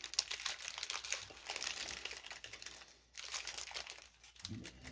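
Foil wrapper of a Pokémon trading-card booster pack crinkling as it is handled and opened: a dense run of small crackles that pauses briefly about three seconds in.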